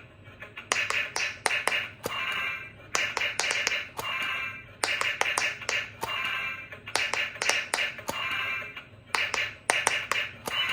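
Battery-powered sound-and-light toy playing short electronic sound effects through its small speaker, about a second each and repeated five or six times, with sharp plastic clicks of its button or trigger between them.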